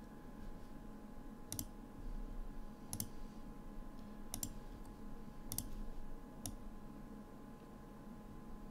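Computer mouse clicking five times, roughly a second apart, over a faint steady hum.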